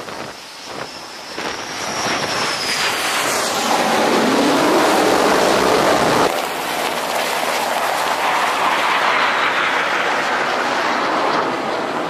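Aircraft passing close by the carrier: a rushing jet roar swells with a high whine that glides down in pitch, cuts off suddenly about six seconds in, then a second roar swells and fades as the aircraft flies past low over the water.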